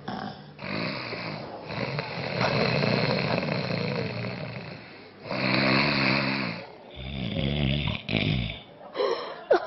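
A man snoring: a run of rattling snores of uneven length, the longest about three seconds, with short breaks between them.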